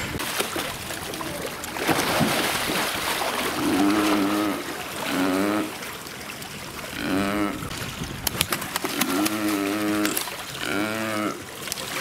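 Pool water splashing and sloshing as spotted seals swim and surface. From about four seconds in come five short, wavering vocal sounds, and there is a quick run of sharp taps a little after eight seconds.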